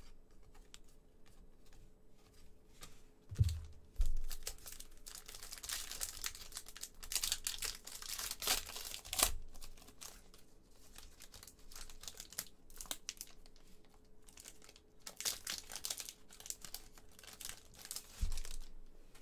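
A trading-card pack's plastic wrapper being torn open and crinkled in the hands, in two spells of crackling, around the middle and near the end. A few soft knocks come in between.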